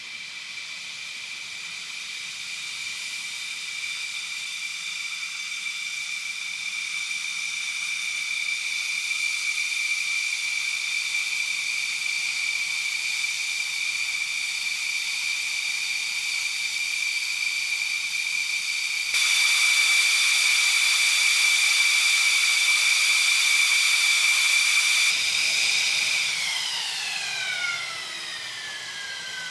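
F-15 fighter jet engines running on the ground with a steady high turbine whine and a rushing hiss, growing louder over the first several seconds. Past the middle a much louder hiss comes in suddenly and cuts off about six seconds later. Near the end the whine glides down in pitch.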